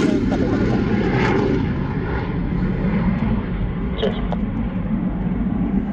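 Steady aircraft engine noise, an even rumble from jets running on the airfield, heard from inside a parked car.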